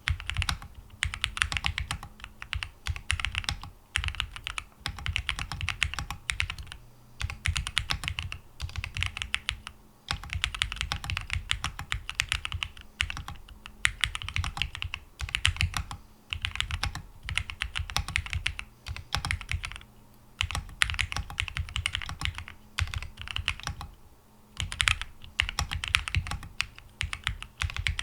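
Typing on a Percent Studio Luna75 gasket-mount mechanical keyboard with linear TTC Wild 42g switches, PC plate, foam-filled case and PBT keycaps: quick runs of keystrokes broken by short pauses.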